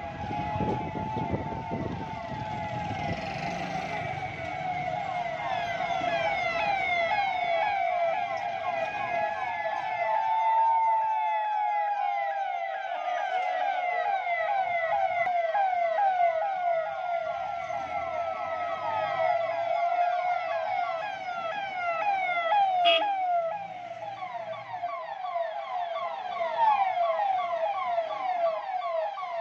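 Several police and administration vehicle sirens sounding at once: slow rising-and-falling wails overlapped by fast, repeating yelps. A low engine rumble runs under them for the first third or so.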